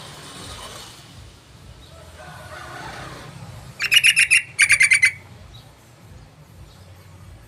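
Yellow-vented bulbul (trucukan) calling: two quick bursts of rapid chattering notes about four seconds in, each lasting about half a second.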